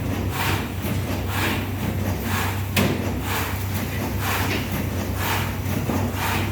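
Plastic-bag making and sealing machine running, with a swishing stroke repeating about once a second over a steady electrical hum and one sharp click about three seconds in.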